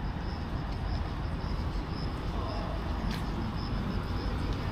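Street ambience: a steady low rumble of road traffic, with a faint high-pitched pulsing chirp throughout and one sharp tick about three seconds in.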